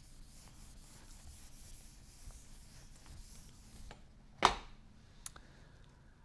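Whiteboard being wiped with a board eraser: a soft, steady rubbing for about four seconds. About four and a half seconds in comes one sharp knock, the loudest sound, then a light click.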